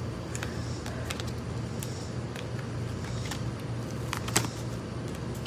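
Tarot cards being shuffled by hand: scattered light clicks and flicks of the cards, with one sharper snap about four seconds in, over a steady low hum.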